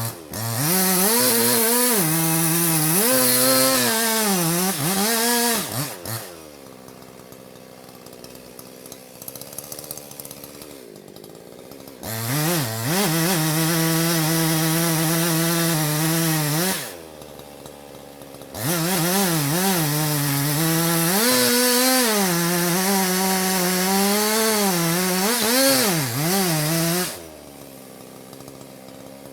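Chainsaw run at full throttle three times, its engine note wavering and dipping as it bogs into the wood. Between the cuts it drops back to a quiet idle.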